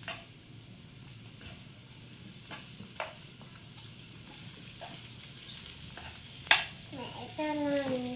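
Instant noodles and sausage sizzling in a frying pan as they are stirred and tossed with wooden chopsticks. A few sharp knocks of the chopsticks against the pan break in, the loudest about six and a half seconds in.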